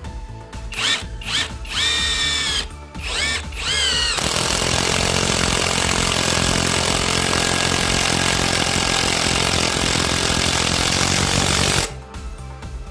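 Cordless impact wrench driving a long screw into a wooden beam. First come a few short trigger pulses, the motor whining up in pitch each time. Then about eight seconds of continuous rapid impact hammering as the screw is driven in, stopping abruptly about a second before the end.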